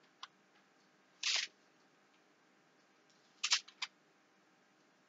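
Pages of a Bible being turned while searching for a passage: a faint tick, then one short papery swish a little over a second in, then three quick rustles together about three and a half seconds in.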